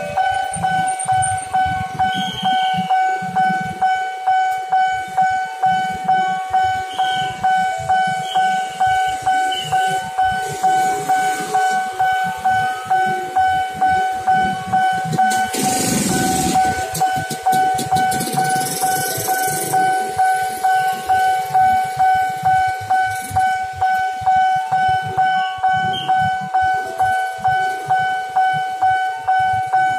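Railway level-crossing warning bell ringing steadily at about two strokes a second, the signal that a train is approaching with the barrier down. A brief rush of noise comes about halfway through.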